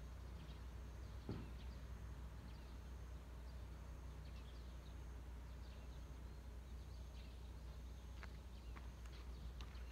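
Quiet outdoor ambience: a steady low rumble with faint scattered ticks and soft high chirps, and a single light knock about a second in.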